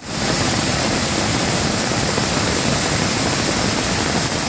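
Waterfall in flash flood, a heavy torrent of muddy storm water pouring over rock ledges: a loud, steady rush of water that cuts in abruptly at the start.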